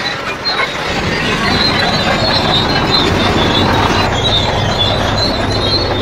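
A truck running as it is driven a little forward: a steady noise with a low hum and a wavering high squeal that comes and goes.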